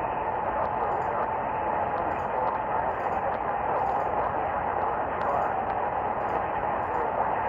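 Radio static: a steady hiss with no clear signal, with faint ticks now and then.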